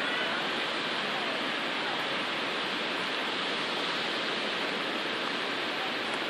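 River water rushing steadily, an even unbroken hiss.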